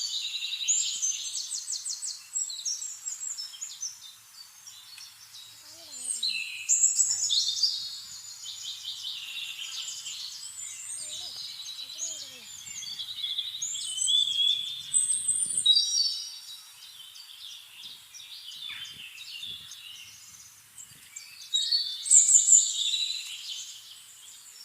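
Several small birds chirping and singing together in a busy, overlapping chorus of quick high chirps and trills, swelling louder three times.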